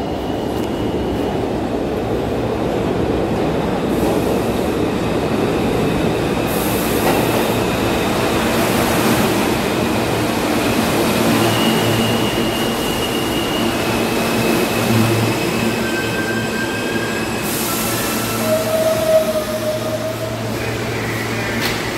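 New York City subway train pulling into the station: a steady rumble of wheels on rails, with high wheel squeals in the second half as the train slows.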